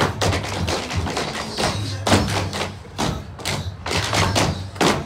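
Tap shoes striking a stage floor in quick runs of sharp taps and heavier stamps, over backing music with a low bass line.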